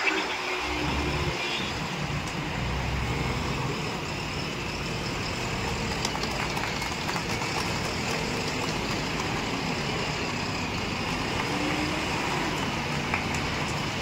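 JCB 3DX backhoe loader's diesel engine running steadily, its pitch drifting up and down as the machine works its loader bucket and moves.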